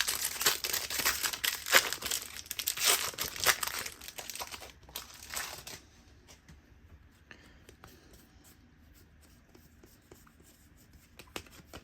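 Wrapper of a Donruss trading-card pack being torn open and crinkled for about the first six seconds, then only faint scattered ticks.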